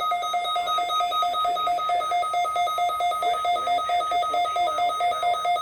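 Midland WR-120 weather radio sounding its alert alarm after the end-of-message tones of a required weekly test: a loud, rapid, evenly pulsed electronic beeping that starts abruptly.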